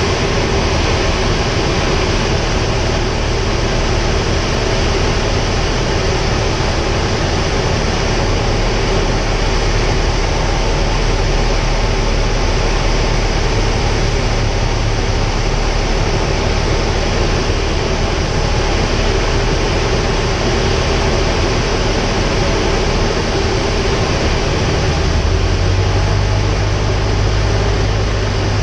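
Luscombe light plane's piston engine and propeller drone steadily with rushing wind, heard from inside the cockpit on the approach to land. The low engine note shifts near the end.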